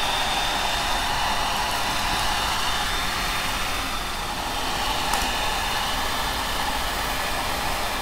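Handheld electric hair dryer blowing steadily over freshly spray-painted plastic panels to dry the paint: an even rush of air with a thin high whine.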